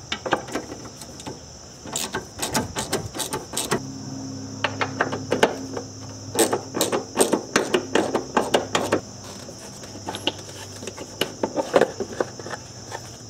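Hand ratchet clicking on the fasteners of a car's plastic air cleaner housing, mixed with plastic knocks and rattles as the housing is worked loose and lifted out, in irregular runs of sharp clicks.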